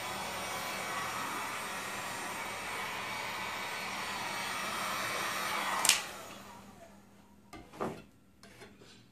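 Heat gun blowing steadily over a wet acrylic pour painting. About six seconds in it is switched off with a click and its blower fades away, followed by a couple of light knocks.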